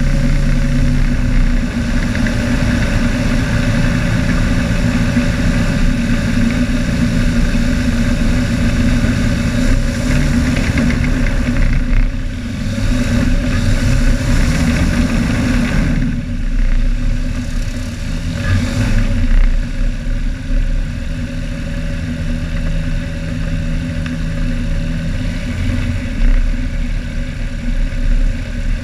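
Light aircraft engine and propeller of a RANS S7 Courier floatplane running at low taxi power on the water, the note shifting a few times as the throttle is worked.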